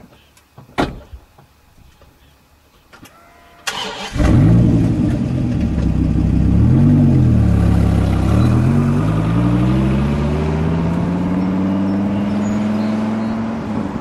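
Dodge Viper V10 starting up about four seconds in, after a few light clicks. It blips once, then pulls away and accelerates, its note rising steadily.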